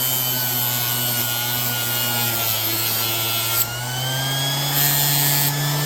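Orbital sander with a 220-grit disc running against the steel blade of a painter's 5-in-1 tool clamped in a vise: a steady motor hum under a dense scratchy hiss. A little over halfway through, the hiss thins out for about a second and then comes back.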